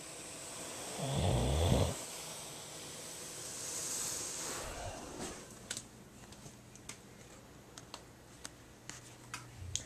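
A person snoring: one loud, low snore about a second in, then a softer hissing breath, followed by a few faint clicks.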